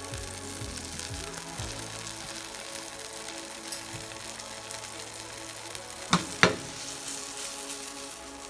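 Butter sizzling in a hot pot on the stove, a steady hiss, as it melts to grease the pot for pancakes. About six seconds in come two sharp knocks a third of a second apart.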